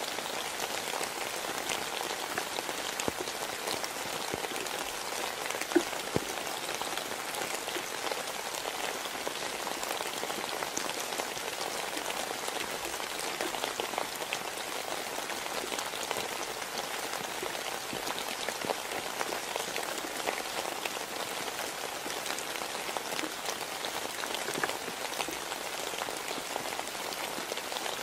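Steady rain falling, a dense even hiss of drops with many small ticks, and two sharper ticks about six seconds in.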